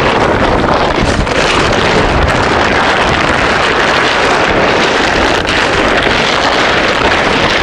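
A large camouflage tarp rustling and crackling without a break as it is shaken out and thrown over a frame.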